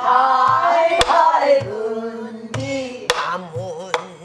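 Pansori singing: a long, wavering melismatic line, accompanied by a buk barrel drum. The drum gives a few sharp stick strikes on its wooden shell and low thumps on the drumhead.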